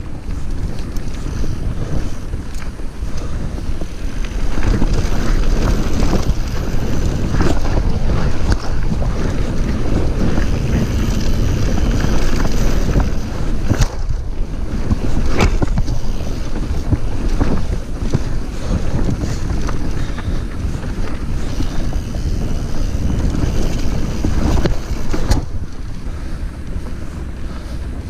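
Heavy wind buffeting on the microphone and the rumble of a full-suspension mountain bike, an Orbea Occam AM H10, riding fast over a rough dirt trail. Several sharp knocks and rattles come as the bike hits bumps. It gets louder about four seconds in.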